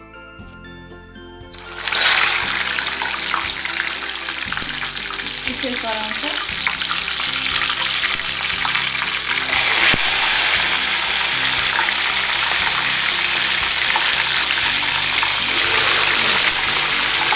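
Chicken pieces going back into smoking-hot oil for a second fry: a loud sizzle sets in suddenly about two seconds in and keeps up, growing louder about ten seconds in as more pieces go in. Background music plays underneath.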